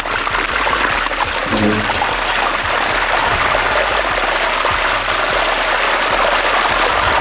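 Chicken wings deep-frying in hot oil, a steady sizzle.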